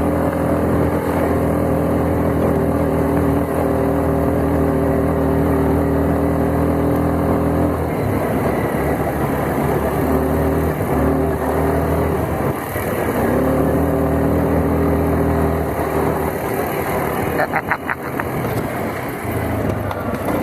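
ATV engine running under way with a steady, even note that wavers and breaks up in the middle before settling again.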